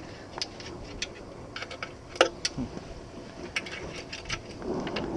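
Irregular small metal clicks and clinks from a boat cover's tie-down strap and hook knocking against the galvanized trailer frame as the strap is pulled and fastened, with one louder clink about two seconds in.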